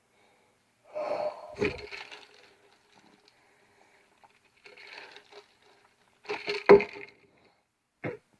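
A man's breathy throat and nose sounds in a few short bursts, like wheezy intakes of breath and sniffs, the loudest a little before the end with a sharp click.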